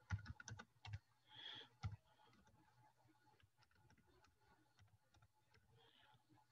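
Faint clicking of computer keyboard keys being typed: a quick run of key clicks in the first two seconds, then much fainter clicks.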